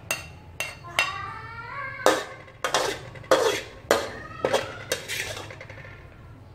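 Metal spatula scraping and knocking against a steel wok as stir-fried food is scooped out onto a plate: about ten sharp clanks mixed with longer scrapes.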